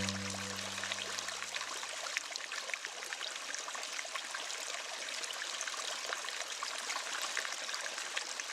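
Waterfall water splashing and rushing steadily, with many small droplet splashes through it. The last low notes of a beat fade out in the first second or so, and then the water runs on alone.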